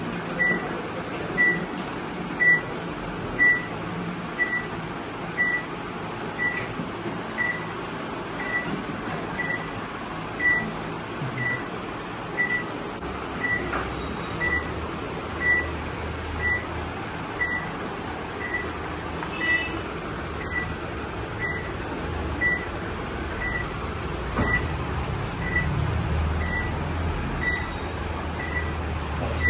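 A short, high electronic beep repeating about once a second, over a steady background hum that grows louder and lower from about halfway through.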